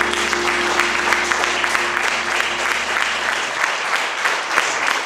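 Audience applauding, a dense patter of many hands clapping, while the song's final held chord dies away in the first few seconds.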